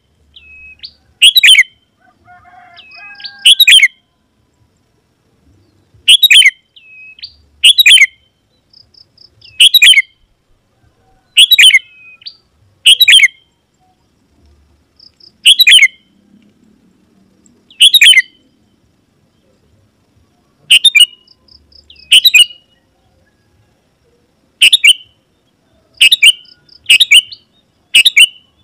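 Sooty-headed bulbul (kutilang) calling: short, loud call notes repeated every second or two, coming faster near the end, with faint softer notes in between.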